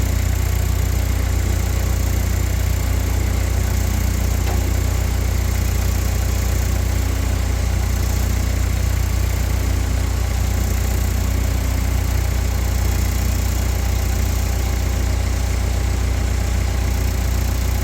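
A motor or engine running steadily with a low, even drone.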